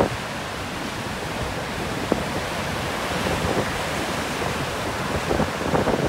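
Storm waves on Lake Superior breaking and washing up the shore, a steady rushing roar, with strong wind buffeting the microphone in gusts.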